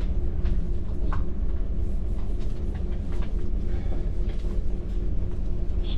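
Steady low rumble and hum of a large fast car ferry's engines and hull under way, heard from inside the ship, with a few faint clicks over it.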